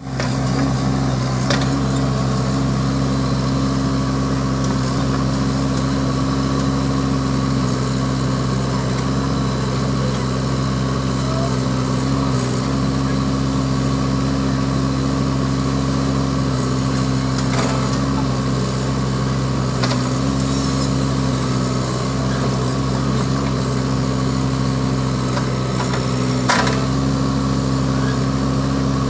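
Bobcat 324 mini excavator's diesel engine running steadily at a constant pitch while it digs, with a few brief knocks.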